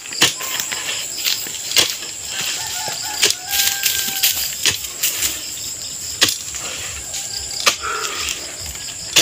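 A metal digging bar striking into hard ground, in sharp, irregular knocks about once every second or so, over a steady high chirring of insects.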